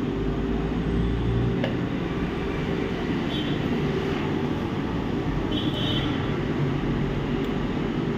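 Steady mechanical hum with an even rushing-air noise and a low drone, unchanging throughout.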